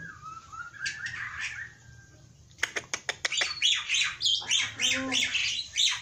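Caged black-winged myna (jalak putih) in full song. A whistled gliding note comes first, then a quick run of clicks about two and a half seconds in, followed by loud, harsh chattering calls.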